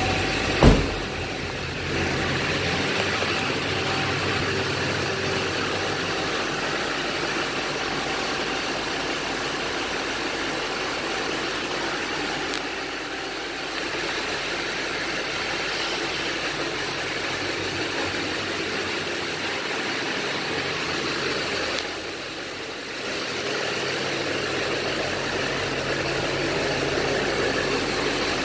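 Chevy Silverado 2500HD pickup's V8 idling steadily. A single sharp knock sounds about a second in.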